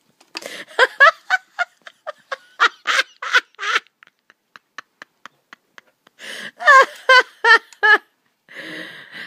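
A woman laughing hard in rapid breathy bursts, breaking off about four seconds in, then laughing again in high-pitched pulses and catching her breath near the end.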